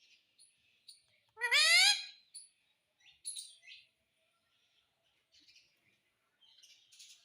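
Pet parrot giving one loud rising call about a second and a half in, then a few short, softer chirps about three seconds in, with faint scratchy chatter near the end.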